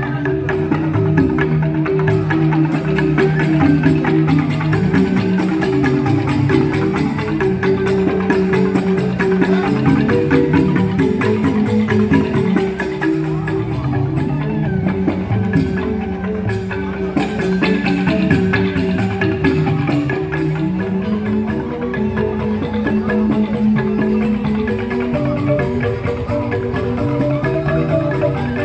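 Joged bumbung gamelan of bamboo xylophones (grantang) playing a continuous piece.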